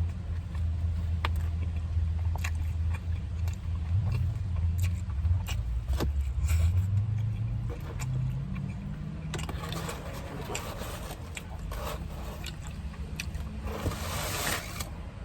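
A low vehicle-engine rumble, rising in pitch about halfway through, under chewing and scattered mouth clicks.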